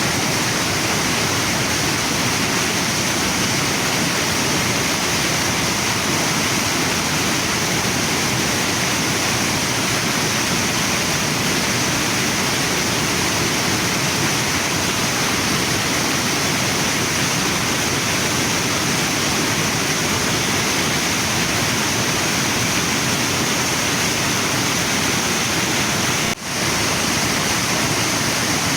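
Waterfall and river water rushing steadily, with a momentary dip in level near the end.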